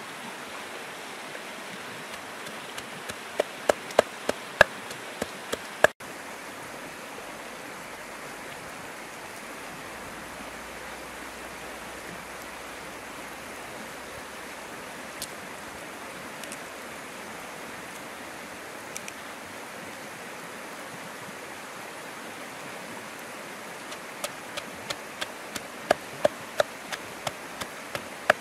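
Pestle pounding red chilies and herbs in a mortar: two spells of sharp, even knocks, about three a second, one early and one near the end. A river flows steadily underneath.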